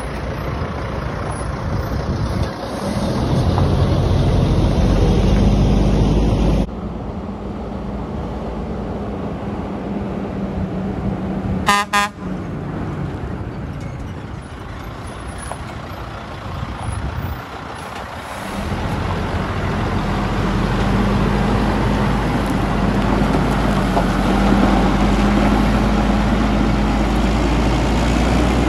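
Heavy-truck diesel engine of a tri-axle dump truck pulling away under load, growing louder as it accelerates. A short pitched toot like a horn comes about twelve seconds in, and the engine works hard again as the truck drives past near the end.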